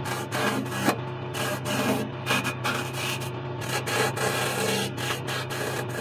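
A wood lathe's motor hums steadily while a steel turning tool cuts into a spinning pine table leg, giving short, irregular scraping rasps several times a second as the tool is worked against the wood.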